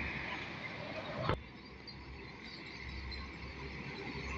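Roadside truck traffic: a truck engine running with road noise and a steady high hiss, cut off by a click about a second in, then quieter before a low engine rumble builds near the end as another truck approaches.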